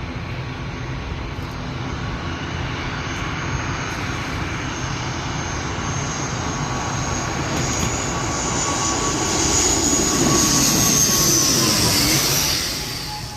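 Mandarin Airlines airliner passing low overhead: engine noise builds steadily and is loudest about ten to twelve seconds in, when its whine drops in pitch as the plane goes by, then fades quickly near the end.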